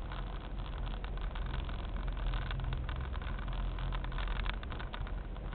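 Car driving at low town speed, heard from inside: steady engine hum and tyre rumble on the road, with a few brief rattles.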